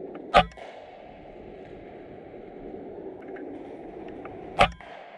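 Two shots from a .22 RTI Arms Prophet PCP air rifle, each a single sharp crack, about four seconds apart.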